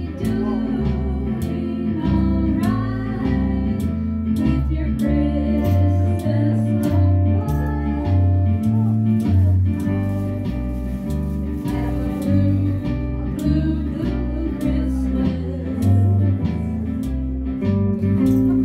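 A small live band playing a country-style Christmas song: electric guitar and a second plucked string instrument over changing low notes, with a woman singing into a microphone.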